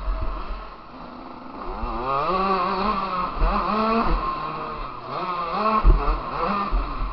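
Motocross bike engine heard from on board, revving up and dropping back over and over as the throttle opens and closes. A few heavy low thumps come through, the loudest near the end.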